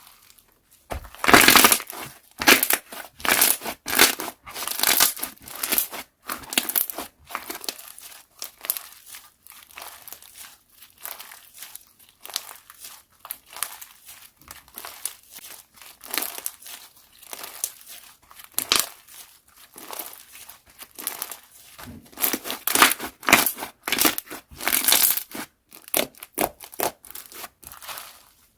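Slime being squished, poked and stretched by hand: a run of irregular sticky clicks and crackling pops, loudest in clusters near the start and again near the end.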